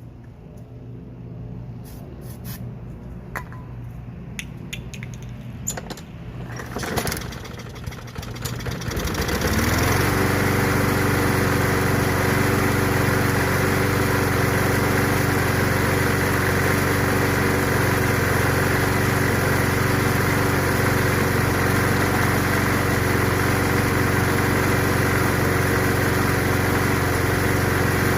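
Briggs & Stratton 190cc push-mower engine: a few knocks and clatter, then about a third of the way in it catches, revs up and runs steadily at constant speed. It runs only on a squirt of starting fluid and won't start on its own, which the owner puts down to something stuck inside.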